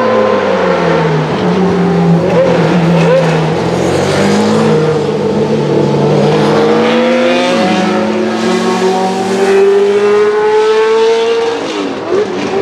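Racing engines passing at close range: a sports prototype, then a 1983 Williams FW08C Formula 1 car with its Ford Cosworth DFY 90° V8. The engine notes fall in pitch early on, then climb in one long rise as the Williams accelerates away.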